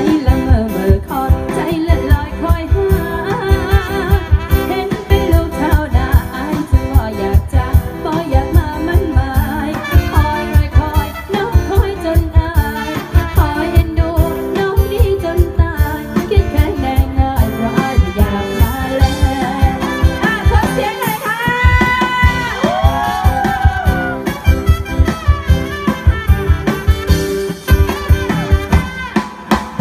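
Live band playing a dance song over loudspeakers, with a singer over a steady drum beat.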